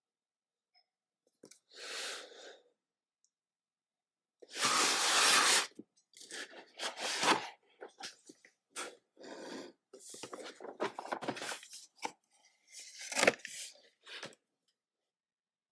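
Plastic shrink wrap being torn and crinkled off a Pokémon card collection box. There is a long tear about four and a half seconds in, then a run of short rustles and crackles, with a sharp snap near the end.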